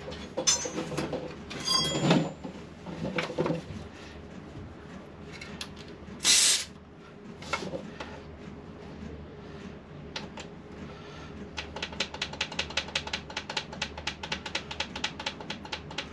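Hand tools at work on a motorcycle wheel: metal clinks and clanks with a short ring, a brief loud hiss-like burst, then a rapid even clicking about eight times a second near the end.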